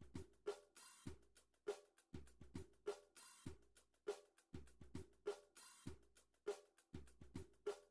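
Quiet background music: a steady drum-kit beat of bass-drum thumps with snare and hi-hat hits.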